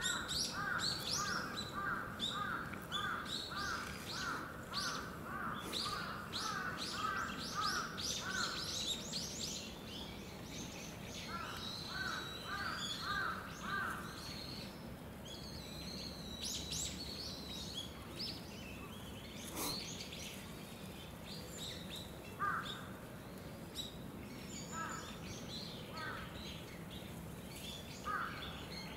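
Wild birds calling: a quick run of repeated notes for the first several seconds and a shorter run later, with scattered high chirps over a steady background hum.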